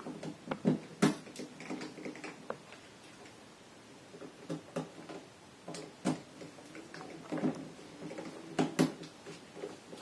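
Flathead screwdriver driving an electrical outlet's mounting screws into the wall box: irregular small clicks, scrapes and knocks as the blade works the screw heads and the outlet's metal strap seats against the box, with a short lull about three seconds in.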